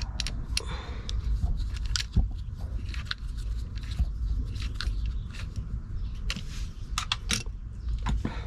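Scattered clicks, rattles and scrapes of small hard parts being handled and prised open, over a steady low rumble.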